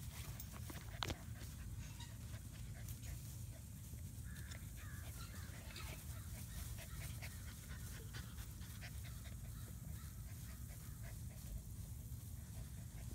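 Six-week-old German Shepherd puppies panting as they play in the grass, with many small ticks and rustles throughout over a steady low rumble. A brief high squeak comes about a second in.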